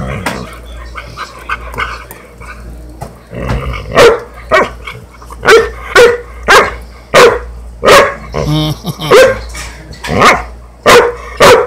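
Small black dog barking in play while mouthing a person's hand: short, sharp barks, a few at first, then a steady run of about one or two a second from a few seconds in.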